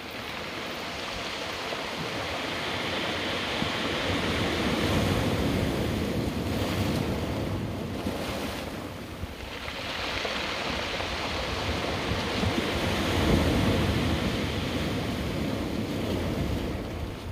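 Surf washing onto a rocky shore, with wind buffeting the microphone. The rush of the waves swells twice, about five seconds in and again a little past the middle.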